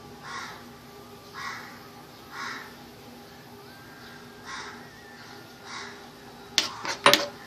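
Repeated harsh bird calls, about five of them roughly a second apart, over a faint steady hum. Near the end a metal spoon clinks and scrapes against the frying pan.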